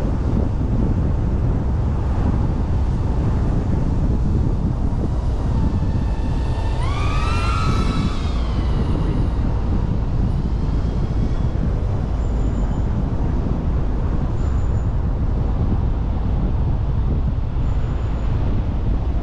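Steady rumble of wind and road noise on the microphone, with a brief wavering tone that rises and falls about seven seconds in.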